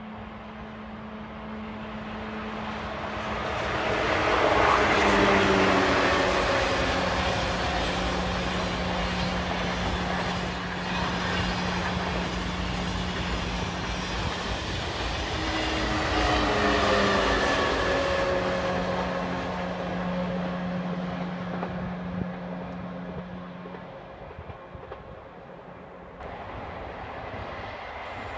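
A Eurostar high-speed train passing at speed. Its sound swells to a first peak about five seconds in and a second peak about seventeen seconds in, each with a whine that falls in pitch as it goes by, over a steady low hum. About two seconds before the end the sound cuts abruptly to a quieter, different rail scene.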